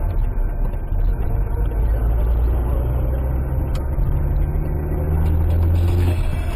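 Car engine and tyre-and-road noise heard from inside the cabin while driving, a steady low rumble whose engine note climbs a little in the second half.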